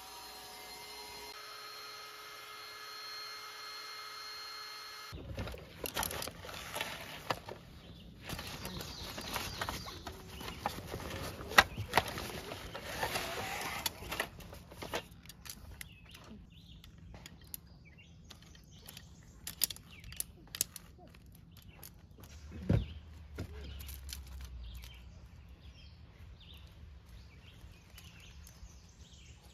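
A small electric motor, likely an air-mattress pump, hums steadily for the first few seconds, then cuts off. After that comes the rattling, clicking and knocking of a collapsible camping wagon's metal frame and fabric being unfolded, with a sharp click about halfway through.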